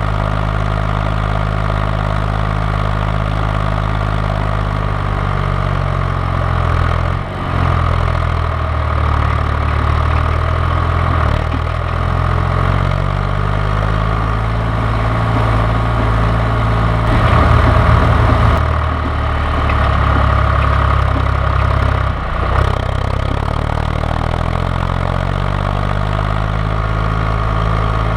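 John Deere 1130 tractor's three-cylinder diesel engine running, idling steadily at first, then its speed rising and falling several times from about six seconds in, loudest about two-thirds of the way through, before it settles back to a steady idle.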